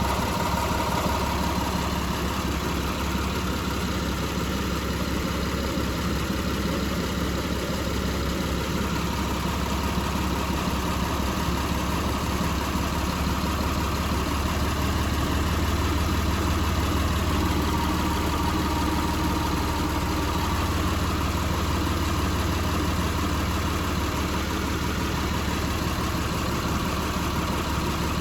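Mitsubishi 380's 3.8-litre V6 idling steadily.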